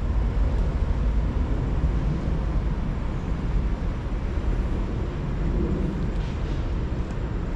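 A steady low rumble with a faint hiss over it, even throughout.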